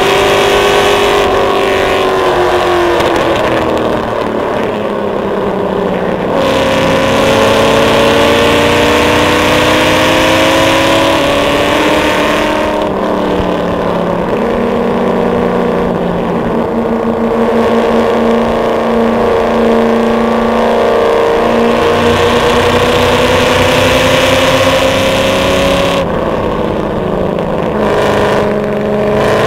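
Ford 351 Windsor V8 in a BMW E34 race car, heard from inside the cabin on a fast lap. Its pitch rises under acceleration over several seconds and drops sharply when the driver lifts and brakes, about three seconds in and again near the end.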